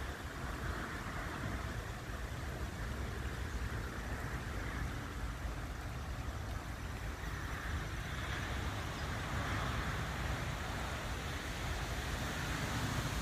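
Steady road traffic noise, the hiss of passing vehicles swelling a little a few seconds after the middle.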